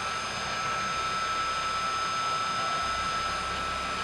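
CNC milling machine spindle running at about 1000 RPM, giving a steady whine with no change in pitch.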